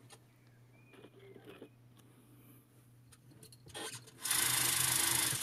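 Spring-wound clockwork mechanism of a Krasnogorsk-1 16mm film camera, freshly lubricated and running with its cover off: a steady, fast mechanical whirr that starts suddenly about four seconds in and runs for about a second. Before it come a few light handling clicks.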